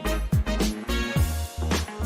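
Background music with a steady beat: a funk track with a strong bass line, drum hits about twice a second and cymbal strokes.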